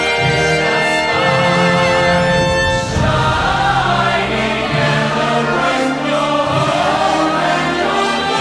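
Musical theatre song: a choir singing with orchestral accompaniment, a high held note with vibrato in the first few seconds.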